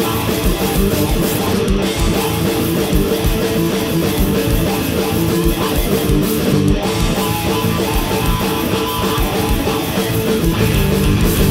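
A live heavy rock band, electric guitar and a full drum kit, playing loud together, with cymbals ringing over the guitar.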